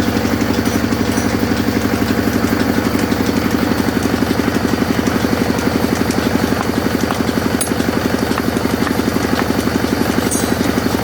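Sawmill machine running steadily, a low engine-like drone with a fast, even pulse.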